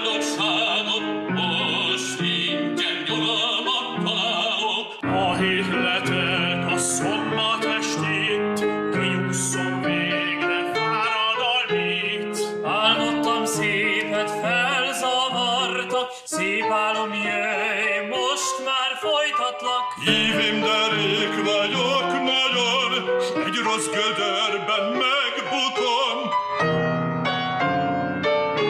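Operatic solo singing with piano accompaniment. The section changes twice, and a woman's voice takes over near the end.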